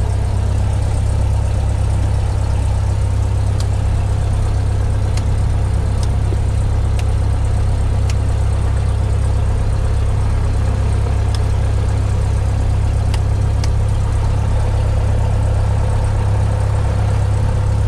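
Cessna 172's four-cylinder Lycoming engine and propeller idling steadily after start, a low, even drone. A few faint light clicks come now and then.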